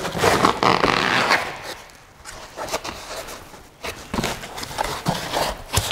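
Foam packing insert scraping and rustling against a cardboard box as it is pulled out. There is a dense scratchy stretch for about the first second and a half, a quieter gap, then lighter scrapes and knocks in the last two seconds.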